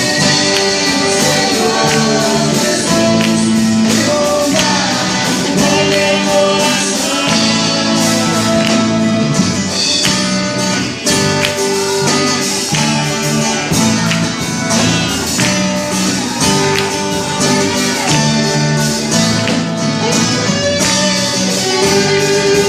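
Live gospel praise music: singers over a band with guitar and percussion, playing steadily.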